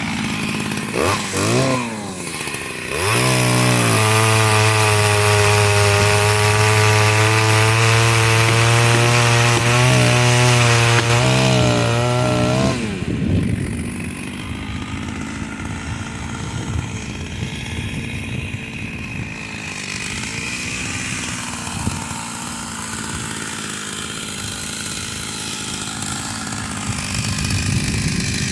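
A two-stroke chainsaw revs up twice, then holds at high speed for about eight seconds. Its pitch then drops and it runs rougher and quieter as it cuts into the wood of a fallen pine, before revving up again near the end.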